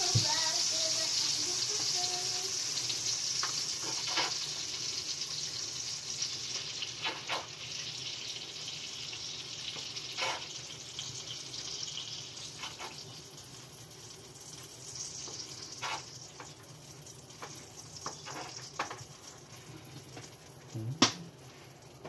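Hot fat and juices sizzling in a metal roasting pan around a freshly roasted bird, the hiss fading gradually as the pan cools. Scattered light clicks from the baster and pan, and one sharp knock near the end.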